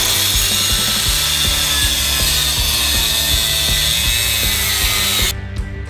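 Angle grinder cutting through a steel leaf-spring shackle on a truck frame: a steady, loud, high grinding rasp of disc on metal that stops suddenly near the end.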